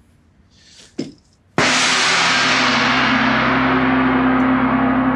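Large chau gong struck once, about a second and a half in, with a padded mallet on a long pole, then ringing loudly with a steady low hum and a bright shimmering wash that slowly fades.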